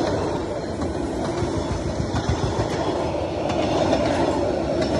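Vietnam Railways passenger coaches rolling past close by: a steady loud rumble of steel wheels on the rails, with scattered clicks.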